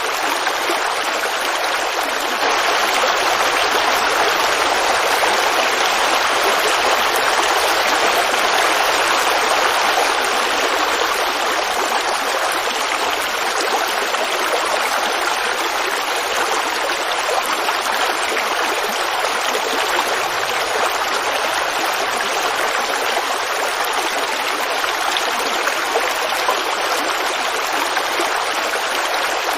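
Woodland creek running and babbling steadily, with an even rush of water and no breaks.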